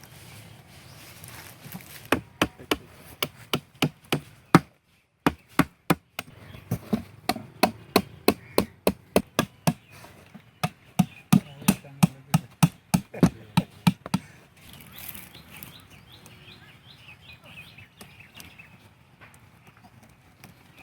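A run of sharp chopping strikes on wood, about two to three a second, stopping a little over two-thirds of the way through. Faint short chirps follow near the end.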